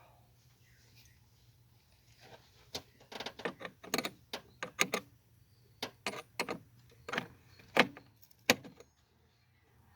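Hands handling parts and tools: a run of sharp clicks, clacks and knocks starting about three seconds in and stopping just before the end, loudest near the end.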